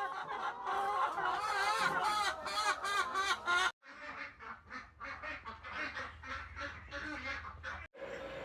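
A flock of farm poultry, most likely ducks, calling and quacking many at once. It breaks off abruptly twice where the video cuts, about four seconds in and near the end, with quicker short repeated calls between the cuts.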